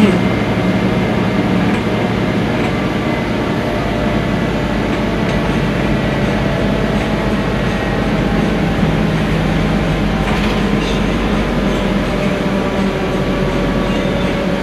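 Steady cabin noise inside a moving Scania articulated bus: the engine's low drone with rolling road noise underneath.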